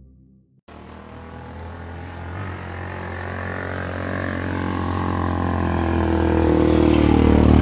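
Small motorcycle engine of a Philippine tricycle (motorcycle with sidecar) running, starting about a second in with a steady low hum and growing steadily louder.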